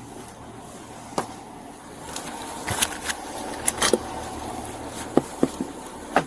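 A scatter of short, sharp clicks and knocks: one about a second in, a cluster near the middle and several more near the end, over a steady low hum.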